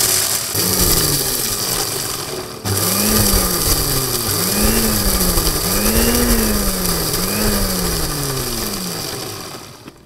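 Electric mixer-grinder motor running at high speed, grinding roasted coffee beans in a small steel dry-grinding jar. It cuts out briefly about two and a half seconds in and restarts, its hum swinging up and down in pitch a few times, then winds down near the end.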